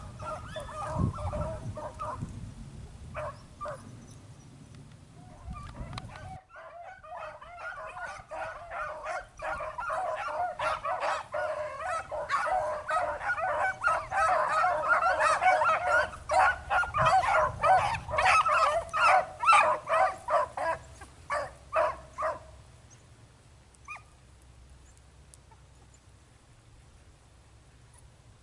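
A pack of beagles baying as they run a rabbit, several hounds' voices overlapping, growing louder toward the middle and then dying away about two-thirds of the way through. Wind rumbles on the microphone in the first few seconds.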